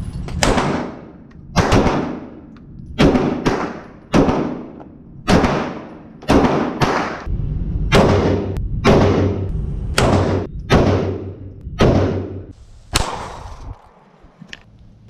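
Handgun shots, about fifteen, fired one after another at an uneven pace, each a sharp crack trailing off in an echo.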